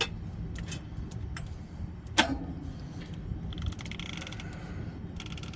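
Metal hand tools knocking, clicking and scraping against the steel of a concrete bump grinder while a stuck coupler is worked loose. One sharp metallic clank rings out about two seconds in, over a low steady rumble.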